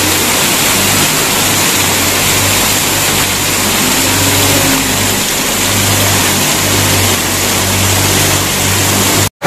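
Heavy monsoon rain pouring and running through floodwater, a dense steady hiss, with a low engine hum underneath that fades in and out. The sound drops out for a moment near the end.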